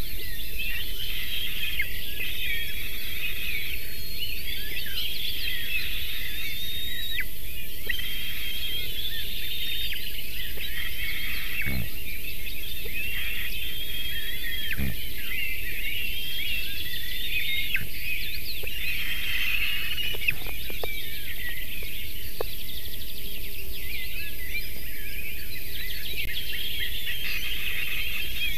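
A chorus of woodland songbirds, many overlapping chirps and trills, over a steady low rumble and hiss from the outdoor nest-camera microphone. A few soft knocks come in the middle.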